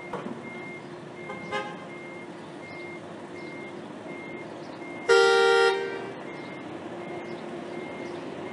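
Vehicle horns honking: a short toot about a second and a half in, then a loud blast of under a second about five seconds in. Underneath are a faint high beep repeating about every half second and a steady hum.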